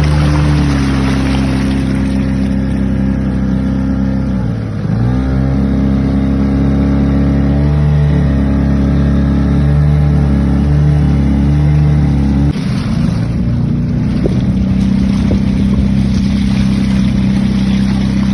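Motorboat engine running steadily under way. Its pitch dips briefly about five seconds in, then comes back up, and the tone changes and grows rougher about twelve seconds in.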